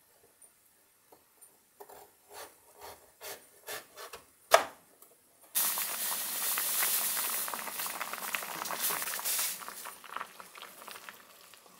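Kitchen knife cutting on a wooden cutting board, about ten irregular strokes with the last one sharpest. About five and a half seconds in, this gives way suddenly to a pot of water at a rolling boil, a dense bubbling hiss that dies down near the end.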